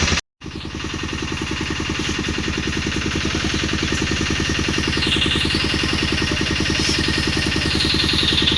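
Pressure washer running: the pump hums with a fast, even pulsing under the hiss of the water jet, and the hiss changes pitch as the spray moves over the motorcycle. The sound cuts out briefly just after the start.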